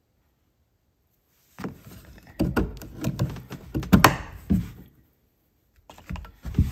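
Silence for about a second and a half, then a run of irregular metal clicks, clinks and knocks as an old cabinet lock is worked loose and pulled out of a dog box lid's aluminium edge. The loudest knock comes about four seconds in, and a few more clicks follow near the end.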